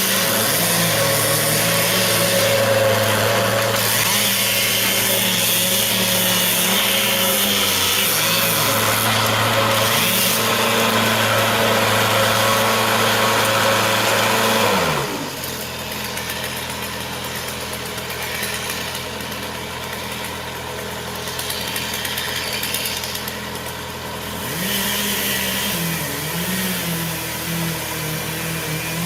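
An engine running steadily. About halfway through it winds down to a lower pitch and becomes quieter. A quieter engine keeps running, with a small rise in speed a few seconds before the end.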